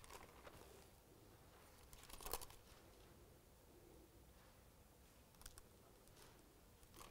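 Near silence: faint room tone with a few soft rustles and clicks of handling at a pulpit, the loudest a short cluster about two seconds in.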